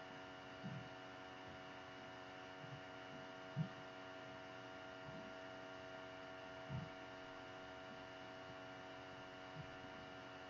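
Faint steady hum made of several held tones, with a few soft low thumps, the clearest near four seconds and near seven seconds.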